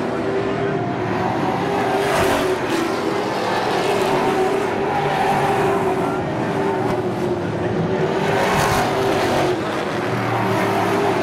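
A pack of Pro Stock race cars' V8 engines running hard around a short oval track, with two brief louder swells about two and eight and a half seconds in as cars pass close.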